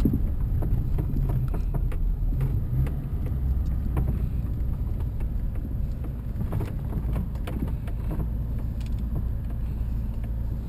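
Cabin sound of a Daewoo Nexia 1.6 with a four-cylinder engine being driven: a steady engine and road rumble, with occasional light clicks.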